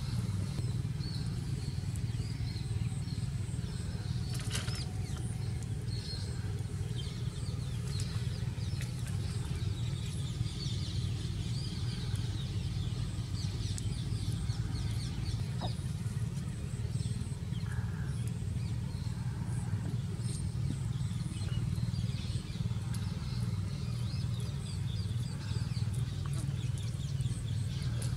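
Steady low hum of background noise, with faint high chirps scattered through it and a few soft clicks.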